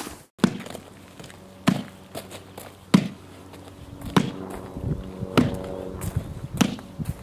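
Six sharp knocks, evenly spaced about a second and a quarter apart. A low steady hum comes in about four seconds in.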